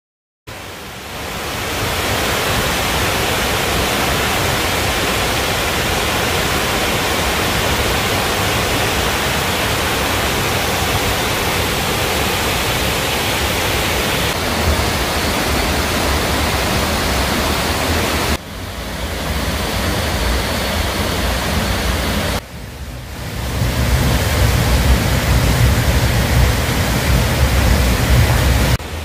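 Mountain stream water rushing through a carved rock channel and falling into a plunge pool, a loud, steady hiss. The sound changes abruptly several times, and a deeper rumble is stronger over the last few seconds.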